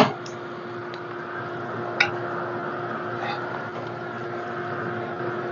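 Handheld electric hot-air dryer running steadily with a constant hum, drying the glued decoupage napkin on a wooden tray. Two light clicks, one at the start and one about two seconds in.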